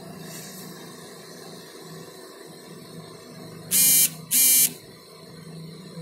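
Hot air gun blowing with a steady low hum while it heats a phone's charging port for removal. About four seconds in, two loud, harsh electronic beeps sound in quick succession.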